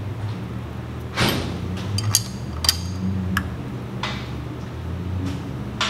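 Wrench clicking and clinking against the bolt and aluminium body of a homemade seal-installer tool as the bolt is turned to press a front main seal onto a John Deere 4045 crankshaft. Several sharp metal clicks, the loudest a little over a second in, over a steady low hum.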